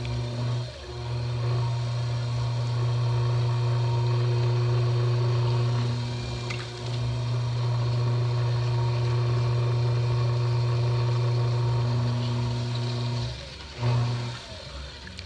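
Electric pottery wheel running with a steady motor hum as a large lump of wet clay is thrown on it. The hum dips briefly about six seconds in and again near the end.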